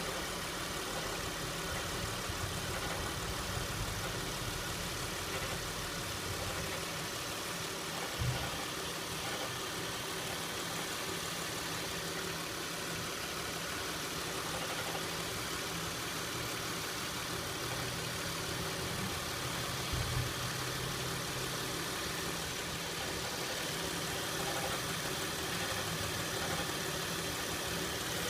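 2006 Acura MDX's 3.5-litre V6 idling steadily with a rattle whose cause is unknown to the owner. A brief low thump sounds about eight seconds in and again about twenty seconds in.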